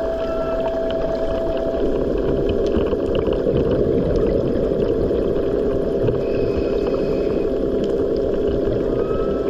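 Muffled underwater ambience picked up by a camera below the surface: a steady low rush of water noise with a faint steady hum in it.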